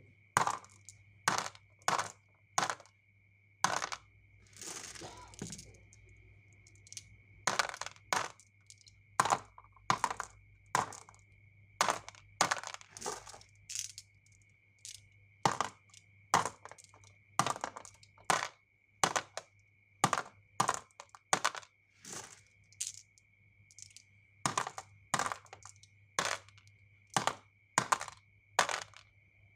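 Marbles and small toy cars clattering down a HABA wooden zig-zag slope toy: a run of sharp wooden clacks, about two a second, with a longer rolling rattle about five seconds in.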